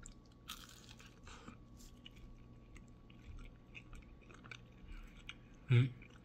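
Close-up chewing of a bite of a grilled tortilla wrap (a French tacos), with small crunches and wet mouth clicks. Near the end comes one short, louder hum.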